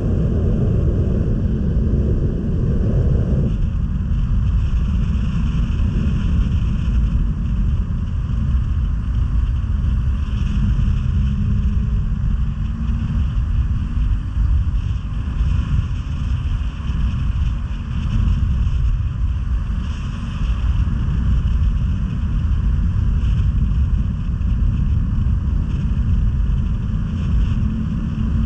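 Snowmobile running steadily along the trail: a continuous low rumble of engine and track.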